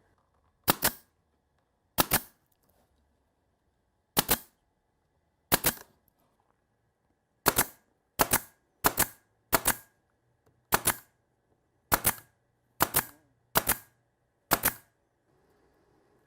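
A nail gun firing thirteen times at uneven intervals, each shot a sharp double snap.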